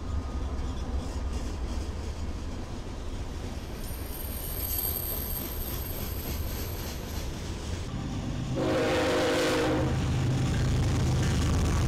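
Diesel freight locomotives passing with a steady low rumble. About two-thirds of the way in, the sound changes abruptly to an oncoming locomotive sounding one air-horn blast of about a second, followed by its engine's low drone.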